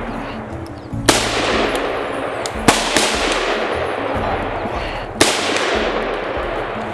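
Three loud rifle shots, about a second and a half to two and a half seconds apart, each trailing off in a long echo.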